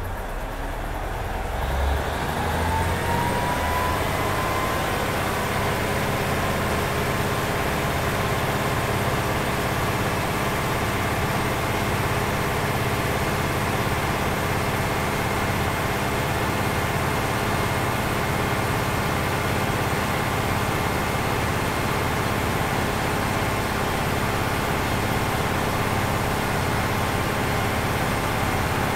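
The Cummins DMF14HZ straight-six diesel engine of a KiHa 47 diesel railcar, free-revved with no load: it rises in pitch over the first few seconds, then holds at high revs.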